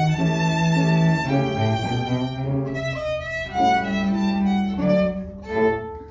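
Small string ensemble of violins and cello playing a tango, bowing held notes in short phrases over a low cello line.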